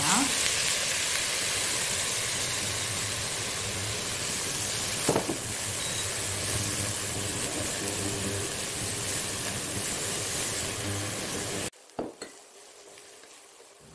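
Shredded cucumber sizzling in a hot oiled wok as it is stir-fried at high heat, with a single short knock about five seconds in. The sizzle cuts off suddenly almost two seconds before the end.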